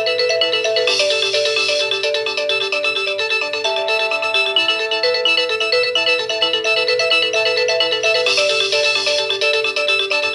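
Nokia 6085 polyphonic ringtone playing: a looping melody of several voices at once, with a cymbal-like hiss about a second in that comes round again near the end as the phrase repeats.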